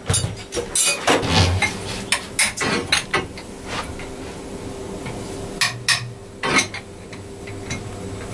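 Metal tools and a steel pipe bar knocking and clinking against the parts of a KIA inline-six engine under repair, in irregular sharp metallic clanks, over a faint steady hum.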